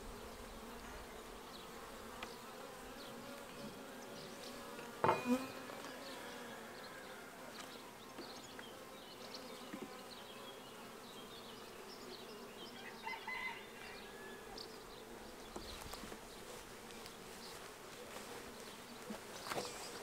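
Honeybees buzzing steadily, a low even hum around an open five-frame hive, with one sharp knock about five seconds in.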